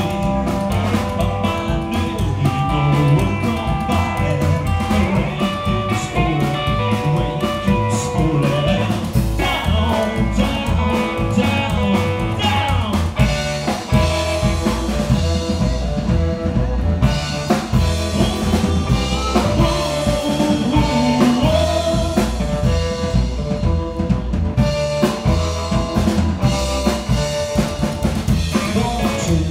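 Live blues band playing: upright double bass, electric guitar and drum kit, with a harmonica played into a cupped microphone carrying long held notes over the top.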